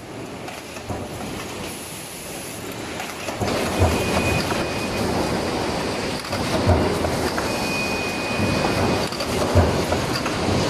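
Stamping press running a progressive die with in-die riveting: a steady mechanical din with a sharp low thump about every three seconds as the press strokes. The din grows louder over the first few seconds.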